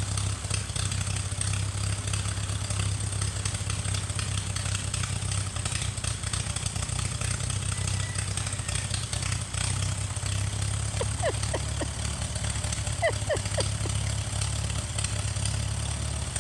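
Farmall M tractor's four-cylinder engine running steadily. A few short faint chirps come in around eleven and thirteen seconds in.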